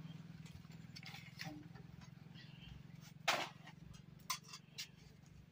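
A few short knocks and clinks of steel dishes being handled, the loudest about three seconds in, over a faint steady low hum.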